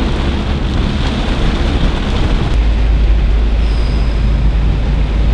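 Car driving through heavy rain, heard from inside the cabin: steady rain noise over a deep road and engine rumble. The low rumble gets stronger about two and a half seconds in.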